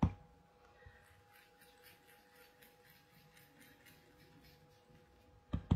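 Foam ink-blending tool rubbed in circles over cardstock: a faint, soft scratchy swishing that repeats about three or four times a second. One short knock sounds just before the end.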